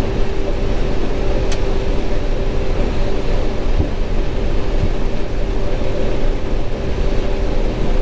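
John Deere straw-walker combine running steadily while threshing corn, heard from inside the cab: a constant mid-pitched hum over a dense low rumble.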